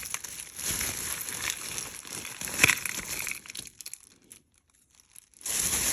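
A bag crinkling and rustling as it is opened and rummaged through, with small sharp clicks. The sound drops to near silence for about two seconds past the middle, then the rustling starts again near the end.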